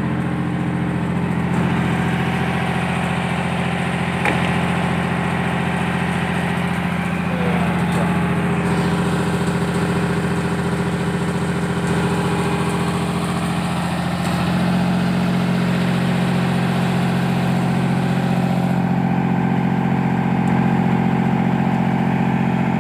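Crane power-pack engine running steadily at idle. About fourteen seconds in its note gets a little louder and fuller.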